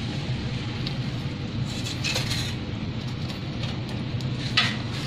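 Metal tongs clinking and scraping against a charcoal grill tray and the grilled eggplants as they are turned. There is a short cluster of clinks about two seconds in and a sharper one near the end, over a steady low background rumble.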